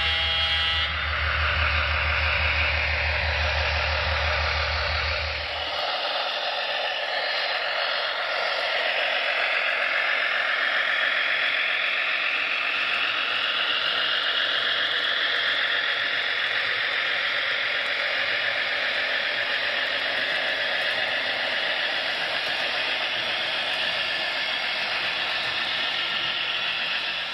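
HO-scale model freight train, led by a Broadway Limited Imports Union Pacific Centipede diesel, running along the track with a steady rolling noise. A low hum under it stops about six seconds in.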